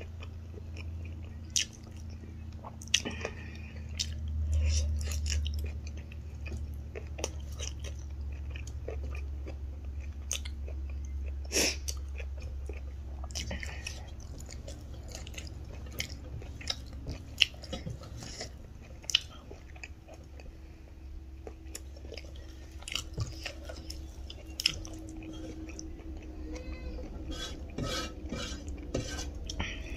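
Close-up eating sounds: chewing and biting rice and spicy pork-leg achar eaten by hand, with many short wet clicks and smacks scattered throughout. A low steady hum runs underneath.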